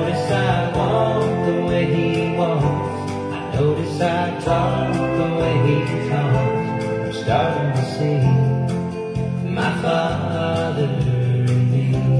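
Country ballad in an instrumental passage between sung lines, with guitars over a steady bass line.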